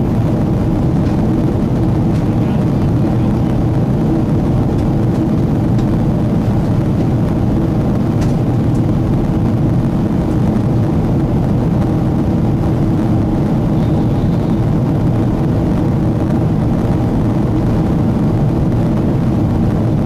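Steady engine and airflow noise inside the cabin of a Boeing 777-200ER in the climb: its Rolls-Royce Trent 892 turbofans running, heard through the fuselage as an even, deep drone.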